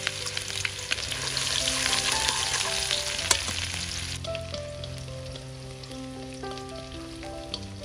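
Food sizzling and crackling as it fries in a pan, with scattered pops; the sizzle drops sharply about four seconds in. Soft background music with held notes plays alongside.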